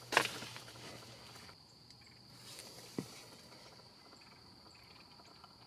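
Insects trilling steadily in a thin, high, continuous note. A sharp knock comes just after the start, and a softer tap about three seconds in.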